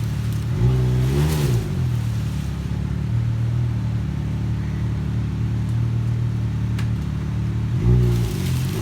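Chainsaw engine running steadily, revved up and back down about a second in and again near the end.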